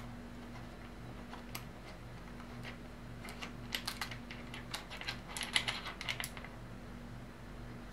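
Hex key turning the mounting bolt of a motorcycle hand-guard bracket: a run of small, sharp metal clicks and ticks, sparse at first and busiest from about three to six seconds in, over a faint steady low hum.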